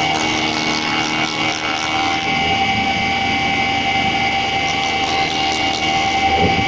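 Spindle moulder running at speed with a steady high whine, its cutter shaping the edge of a wooden panel fed by hand along the guide bearing.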